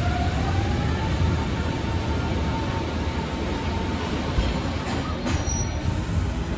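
Passenger train running slowly through a station, heard from aboard: a steady low rumble with a thin squeal that rises in pitch during the first second and then holds for a couple of seconds.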